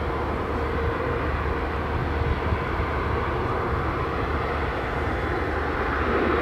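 Jet airliner engines running, a steady rush with a constant low hum and a held mid-pitched tone.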